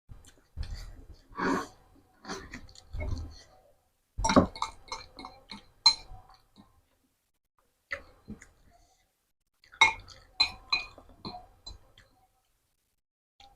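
Close-miked eating sounds: chewing and slurping spicy seblak noodles and crackers, with sharp clinks of a spoon against the bowl, in several bursts separated by short pauses.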